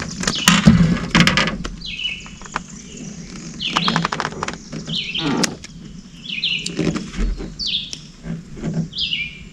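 A bird calling again and again with short falling chirps, about seven in all, mixed with several bursts of sharp clattering knocks as a just-landed bream is handled in the boat; the loudest knocks come about a second in.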